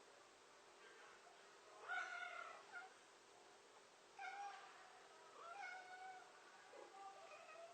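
Domestic cat meowing faintly, about four separate meows a second or two apart.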